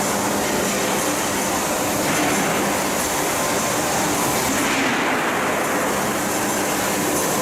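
A KOHAN steel-coil cut-to-length line, built in 1986, running. Its machinery makes a steady, loud noise with a few faint steady tones underneath.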